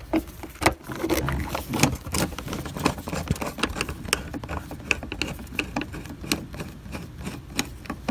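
A hand screwdriver turning a screw out of a plastic trim panel: irregular small clicks and scrapes, several a second, over a low rumble.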